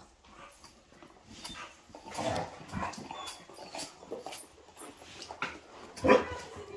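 Dogs playing together: scuffling and short, uneven dog noises, with a louder burst about six seconds in.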